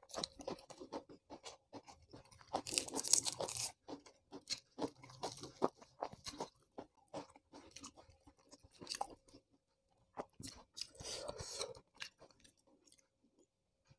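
Close-up chewing and crunching of crisp raw vegetables, a run of sharp crunches with the loudest about three seconds in and more bursts later.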